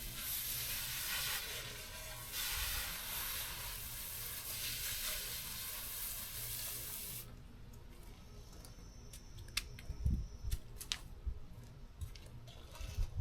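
A steady hiss like spraying water, which cuts off suddenly about seven seconds in; a few faint clicks and knocks follow.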